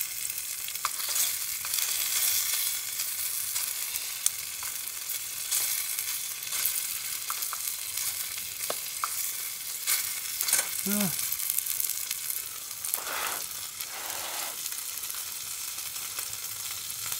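Bite-size pieces of chicken thigh sizzling as they cook, a steady hiss with scattered small pops.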